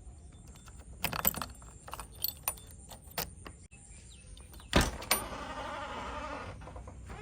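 Machinery working, a low rumble broken by a clatter of sharp knocks and one heavy thump about five seconds in, followed by a rougher rushing noise.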